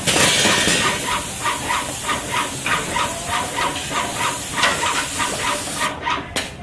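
Graco airless paint sprayer with a RAC X 410 fine-finish tip, spraying paint: a steady hiss with a rhythmic pulsing about three times a second. The hiss cuts off about six seconds in as the spraying stops.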